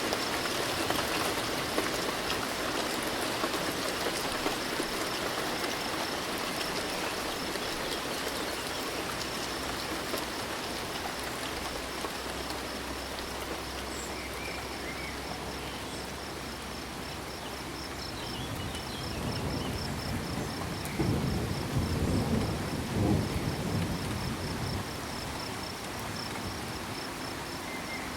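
Steady rain falling, with crickets chirping in a fast, even pulse. From about two-thirds of the way in, a low rumble of thunder swells and peaks before fading, the loudest sound here.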